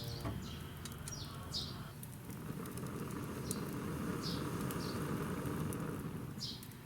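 Small birds chirping: short, high, falling chirps every second or so over a steady low rushing noise.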